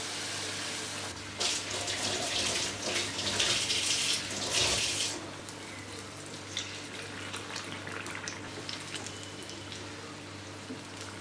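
Hot oil sizzling as battered banana fritters deep-fry in a non-stick pan. The sizzle swells for a few seconds from about a second in as the fritters are turned over, then settles to a steadier, softer hiss.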